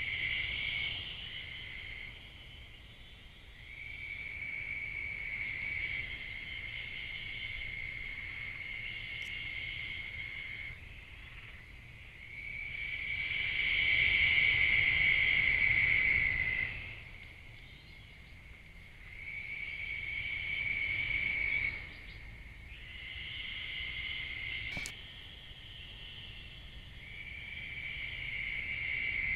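Night insect chorus: a steady high trilling buzz in bouts a few seconds long, swelling and fading with short gaps between.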